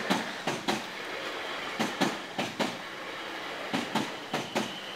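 Class 444 Desiro electric multiple unit passing, its wheels clacking over the rail joints in quick pairs, about six pairs in five seconds, over a steady rushing hiss.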